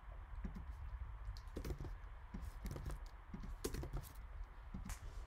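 Typing on a computer keyboard: a quiet run of irregular keystrokes.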